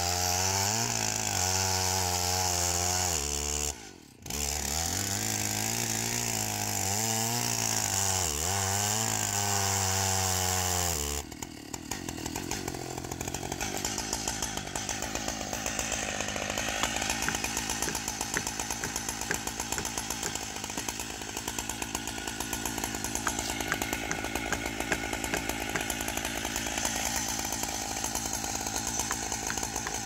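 Large Stihl chainsaw crosscutting a big pine log. For about the first ten seconds the engine note sags and recovers as the chain bites, with a brief drop-out about four seconds in. The sound then becomes rougher and noisier, with no clear engine note, as the saw keeps cutting.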